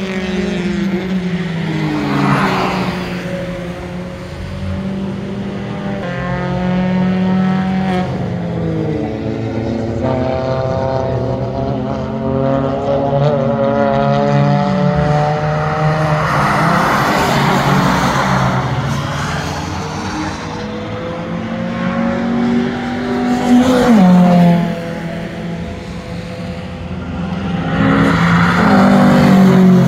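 Several car engines lapping a wet track, revving up through the gears and dropping in pitch when the drivers lift or brake, often more than one engine at once. A hiss of tyres on the wet surface swells twice as cars pass close, about halfway through and near the end.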